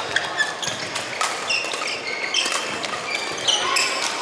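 Badminton rally on a wooden sports-hall floor: sharp racket strikes on the shuttlecock mixed with the short, high squeaks of players' shoes and their footfalls as they move about the court.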